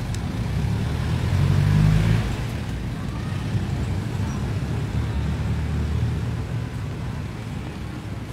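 Jeepney engine running in street traffic, a low rumble that swells to its loudest about two seconds in and then holds steady.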